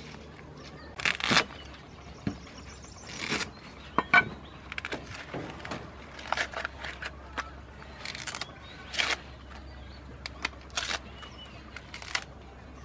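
Green corn husks being torn and peeled off young ears of corn by hand, a series of short, crisp tearing and rustling sounds.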